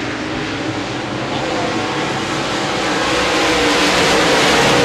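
A pack of Modified dirt-track race cars' V8 engines running hard on a green-flag restart, growing louder over the second half as the field comes around.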